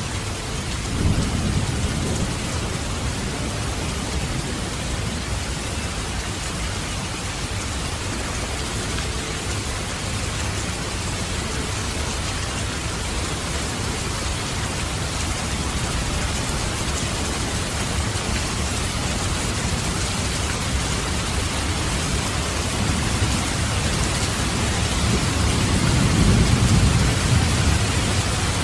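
Steady heavy rain with two rolls of thunder: a brief rumble about a second in and a longer, louder one near the end.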